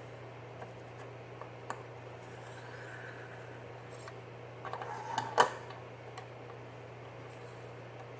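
Light scraping and ticking from a 600-grit diamond hone on a KME guided-rod knife sharpener drawn along a knife edge, with a cluster of clicks ending in one sharp click about five seconds in, over a steady low hum.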